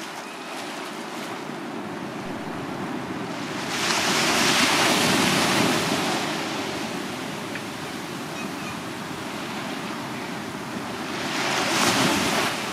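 Small sea waves breaking and washing up a sandy beach: a steady hiss of surf that swells twice as a wave breaks, about four seconds in and again near the end.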